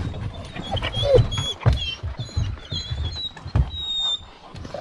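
Thumps and scuffling as hounds shift about on a pickup truck's dog box, with a short whine about a second in.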